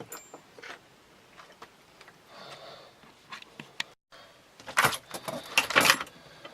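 Small metal tools and hardware being handled and rummaged through on a workbench: scattered light clicks and clinks, then a louder burst of metallic clatter about five seconds in.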